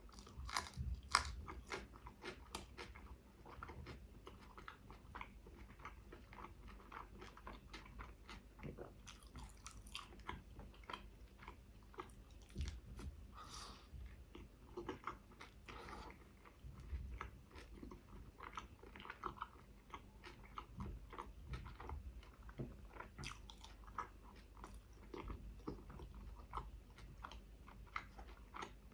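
Close-miked chewing and biting of a chicken shawarma wrap, with many small wet clicks and crunches as the bread and meat are chewed; the loudest bite comes about a second in.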